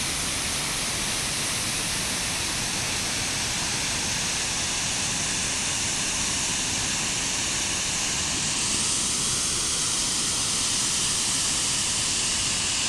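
Steady, unbroken rush of a waterfall: a constant wash of falling water, heavy in the high hiss, that starts and stops abruptly.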